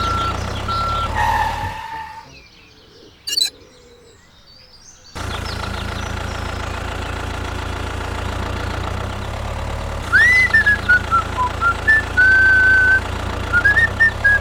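Steady low truck engine hum with a couple of reversing beeps. It cuts out for about three seconds, with a single click in the gap, then resumes. From about ten seconds in, a string of loud, high whistling chirps that glide up and down rides over the hum.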